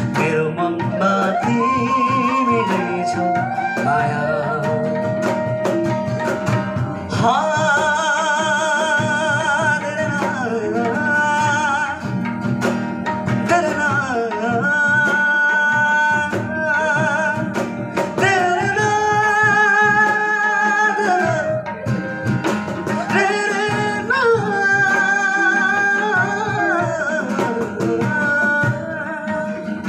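Live acoustic band: a male voice sings long held phrases with a wavering vibrato, over acoustic guitar and tabla.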